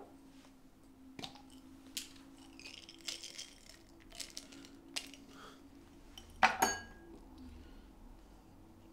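Pills and a small glass pill bottle handled by hand: scattered small clicks and a short rattle, then a louder glass clink with a brief ring about six and a half seconds in as glass is set against the wooden table. A faint steady hum runs underneath.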